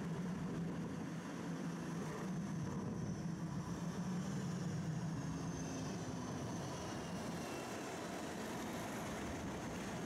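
Running noise of a tram heard from inside the car while it travels: a steady low rumble, with a faint high whine that slowly falls in pitch partway through.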